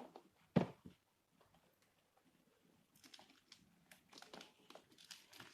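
A board game box being handled and opened. There is a single knock about half a second in. From about three seconds in comes a quick run of rustling, crinkling and scratchy clicks from the box and its wrapping.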